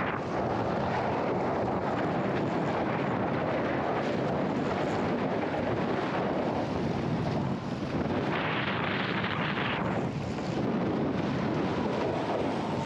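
Wind buffeting the microphone in a steady rush over choppy sea water, with a stronger gust about eight seconds in lasting a second and a half.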